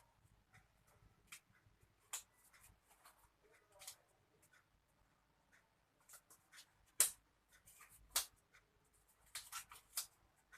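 Scattered light clicks, taps and rustling of small objects being handled, with the sharpest clicks about seven and eight seconds in.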